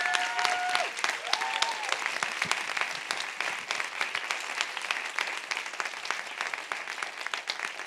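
Audience applauding, dense and steady, with a held whoop from the crowd near the start and a shorter one at about a second and a half; the clapping eases off slightly toward the end.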